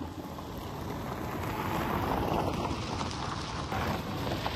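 Electric golf cart driving past on a gravel driveway, its tyres crunching on the gravel: the sound grows as it approaches, is loudest about two to four seconds in, then begins to fade as it moves away.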